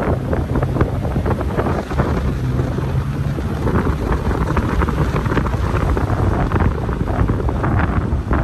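Inside a vehicle driving a dirt off-road track: the engine's steady low hum under rough tyre and road noise, with frequent short knocks and rattles from the bumpy surface, busier in the second half.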